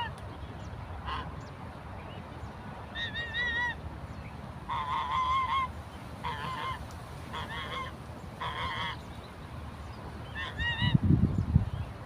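Geese honking: about seven calls at irregular intervals, each with a wavering pitch. Near the end a loud low rumble comes in.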